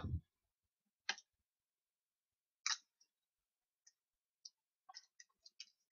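Faint, scattered small plastic clicks and taps from handling a primer dropper bottle and a spray gun's paint reservoir: a single click about a second in, another near three seconds, then a quick run of little ticks near the end.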